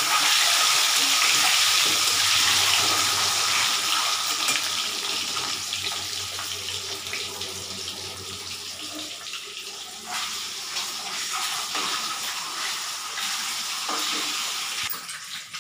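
Whole boiled eggs sizzling in hot oil in a kadai, the hiss loudest at first and slowly dying down. A metal spatula knocks and scrapes against the pan a few times in the second half as the eggs are turned.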